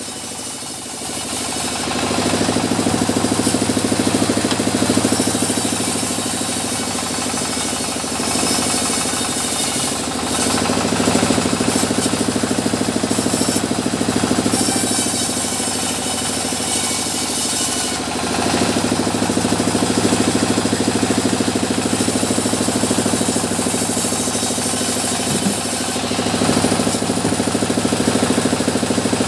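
Sawmill machinery running: a steady engine drone with a saw cutting through mahogany. The cutting noise swells and falls away in long stretches.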